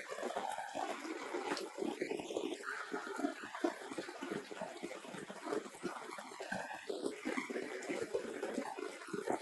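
Steady rain noise, with a couple of short, high cries from a young animal about two seconds in and again near the end.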